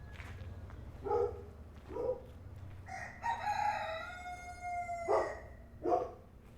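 A rooster crowing once, one long call of about two seconds in the middle, with short clucking calls from barnyard fowl before and after it, over a steady low background hum.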